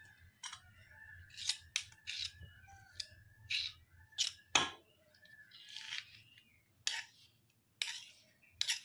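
Steel spoon scraping sticky sesame-and-jaggery mixture out of a metal kadai onto a steel plate: a run of short, irregular scrapes and clinks of metal on metal.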